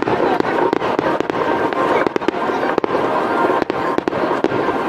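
Fireworks exploding in quick succession: a dense crackle with many sharp reports close together.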